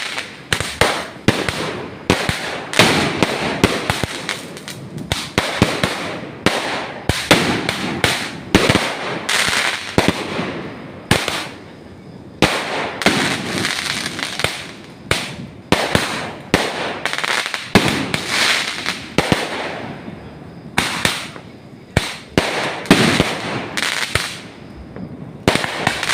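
A continuous barrage of fireworks: many sharp bangs at irregular intervals, often several a second, with a noisy crackle between them.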